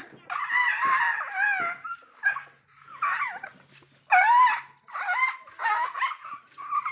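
Asian elephant calf giving a string of short, high, whining cries with brief gaps between them: its hungry crying.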